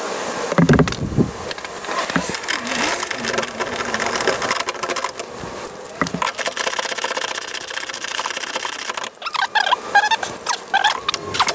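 Hand ratchet clicking rapidly as it turns the bolts of a Honda Civic's rear camber arm mount, with metal tapping and a few squeaks near the end.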